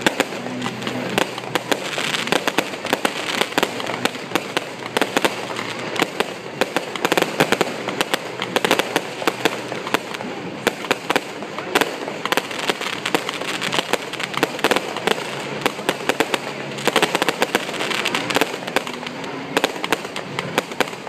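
Fireworks display: aerial shells going off in a continuous barrage of sharp bangs and crackling pops, many every second.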